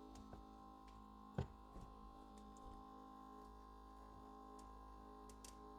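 Near silence: a faint steady electrical hum, with a few faint ticks and one sharper click about a second and a half in.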